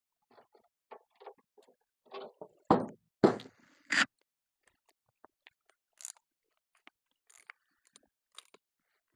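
Small metal clicks, scrapes and taps from hand work inside a gas furnace as the cleaned flame sensor is fitted back into the burner chamber, with three louder knocks close together a little under halfway through.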